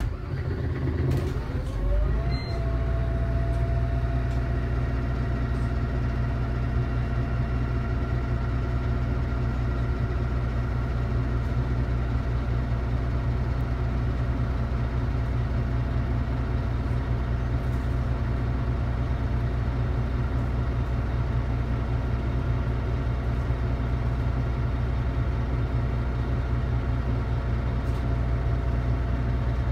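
DAF DB250 double-deck bus's diesel engine idling steadily. A whine rises in pitch over the first couple of seconds and then holds steady over the low engine note.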